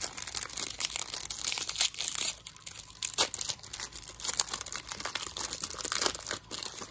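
Foil Pokémon TCG booster pack being crinkled and torn open by hand, with dense, irregular crackling throughout.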